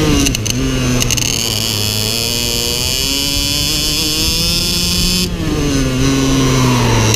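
IAME X30 Super 175cc two-stroke shifter kart engine heard onboard: the revs climb steadily under acceleration for about four seconds, drop sharply about five seconds in as the throttle is lifted, fall away, and start to climb again near the end. A few short clicks sound in the first second.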